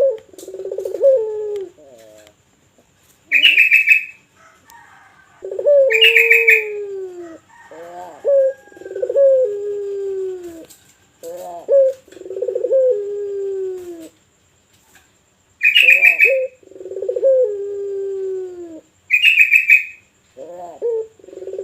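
A puter dove (Barbary dove) of the deep 'pelung' voice type cooing over and over, each coo a short lead note followed by a long falling note. Four short, loud, higher-pitched chirping bursts break in between the coos.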